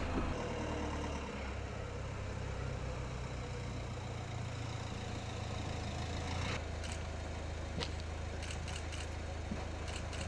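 Minibus engine running steadily with a low hum, with a few short light clicks in the last few seconds.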